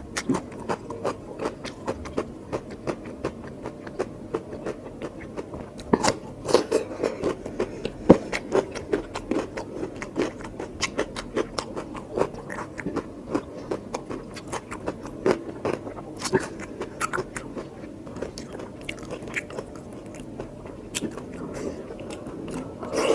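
Close-miked mouth sounds of eating curry with rice and mutton: continuous wet chewing and lip-smacking, with sharper crunchy bites scattered through.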